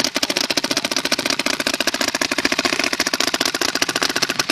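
Two Invert Mini paintball markers on a shared split remote air line firing together in full auto, a fast, even stream of pops that the setup's owner puts at about 44 balls a second combined.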